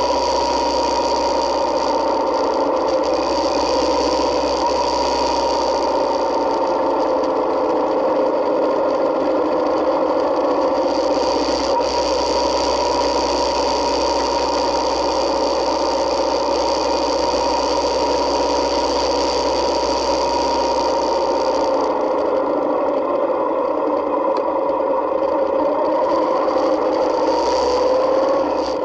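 Yamaha Midnight Star 1900's V-twin engine running steadily under way, picked up by a camera mounted on the motorcycle, with wind and road noise. Its pitch rises a little near the end.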